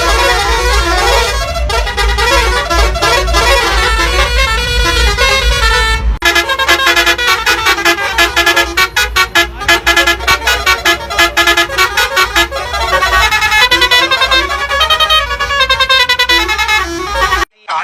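Tourist bus's multi-tone musical air horns blaring a tune in stepped notes, with a deep low rumble under the first few seconds. Around the middle the horns sound a run of rapid short blasts.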